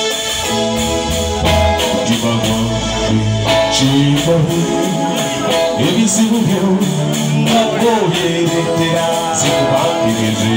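Live band playing a song: electric guitar, keyboard and a drum kit keeping a steady beat, with singing coming in over it from about halfway through.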